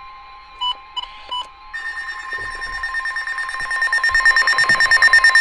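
Weather alert radio alarm: three short electronic beeps, then a rapidly pulsing electronic alarm tone that grows steadily louder, signalling an incoming severe thunderstorm warning.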